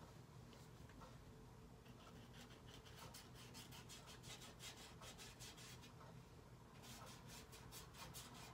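Faint, quick scratchy strokes of a thin paintbrush dabbing on paper, several a second, starting about two and a half seconds in.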